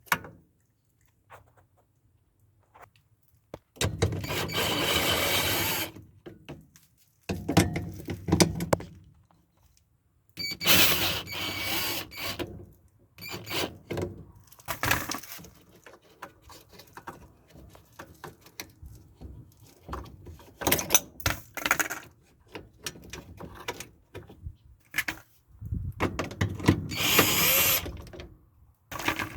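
Clicks, scrapes and rattles of tools and parts being worked on a GE washer's mode shifter to squeeze it free, with several stretches of denser noise lasting one to two seconds.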